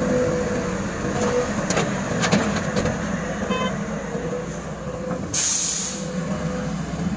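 SANY SY210C-9H hydraulic excavator working: its diesel engine runs steadily under a steady whine, with several sharp metallic knocks in the first three seconds, a brief beep, and a short loud hiss a little past the middle.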